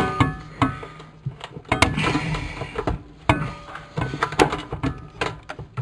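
Irregular clanks and taps of metal tools and plumbing fittings being handled under a sink, several of the knocks followed by a brief metallic ring.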